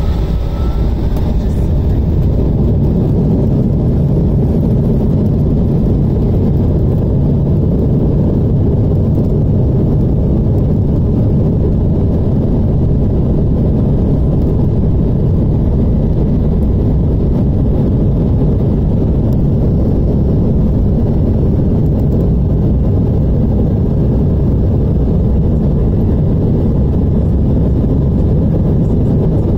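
Steady low rumble of an Embraer E175's GE CF34 turbofan engines and rolling airframe, heard inside the cabin while taxiing at low power.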